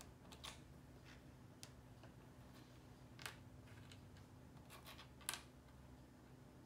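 Small wooden stamp-game tiles clicking faintly as they are set down one at a time on a wooden tabletop: a handful of separate light taps, the loudest about five seconds in. A faint steady low hum runs underneath.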